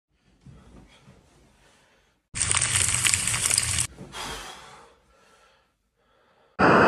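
Duvet and bedsheets rustling as a person tosses and turns in bed, broken by two loud bursts of noise that start and cut off abruptly, the second with steady tones running through it.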